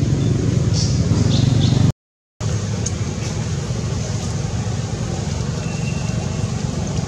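Steady low rumble of outdoor background noise, broken by a half-second gap of dead silence about two seconds in, with a few faint, short high chirps now and then.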